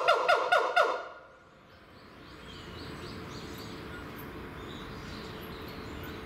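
Siamang, throat sac inflated, calling: a fast run of loud, repeated yelping notes that stops about a second in, after which the calling drops to faint. It is part of a mated pair's loud territorial calling.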